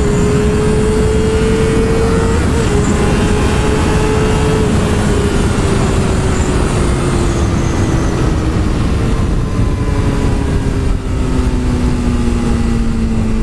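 Yamaha R6 inline-four sport bike engine running, its pitch falling slowly and steadily as the bike eases off, under heavy wind rush on the helmet microphone.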